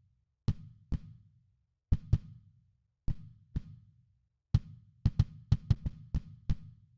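Kick drum track played back on its own: single and paired thumps with short low decays, quickening into a run of close hits near the end.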